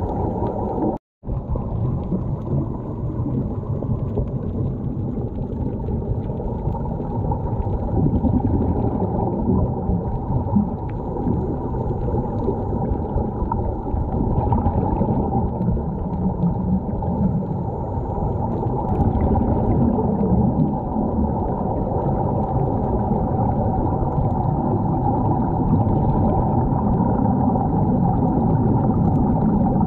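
Muffled underwater noise, a steady rumble with bubbling, heard through a waterproof camera housing; it cuts out completely for a moment about a second in.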